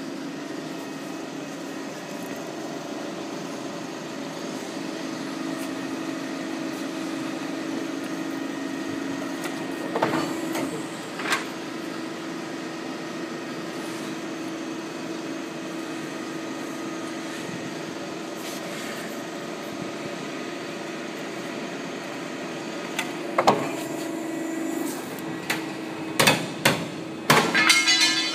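ACCURL CNC hydraulic shearing machine running with a steady hum from its hydraulic pump motor, with sharp metal clanks: two around a third of the way in, and a cluster of clanks near the end.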